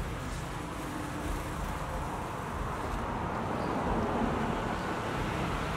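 Background road traffic noise, a steady rush with low rumble that swells slightly about four seconds in.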